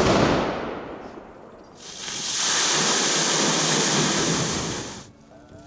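A sharp bang whose sound dies away over about a second and a half, then, about two seconds in, a steady rush of water gushing out of a wooden water-tower tank, cut off abruptly about five seconds in.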